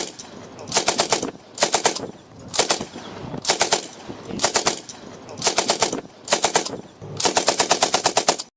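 M60 machine gun firing short bursts of a few rounds each, about one burst a second, with a longer burst near the end that cuts off suddenly.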